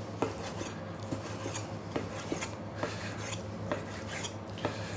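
Kitchen knife slicing raw chicken breast into strips on an end-grain wooden cutting board. The slicing strokes rasp, and the blade knocks lightly on the wood at irregular intervals, about two a second.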